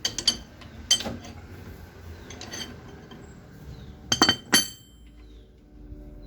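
Steel wrench and 36 mm socket clinking against the CV-joint axle nut as it is loosened off a GM Onix front hub: a handful of sharp metallic clinks that ring briefly, the loudest cluster about four seconds in.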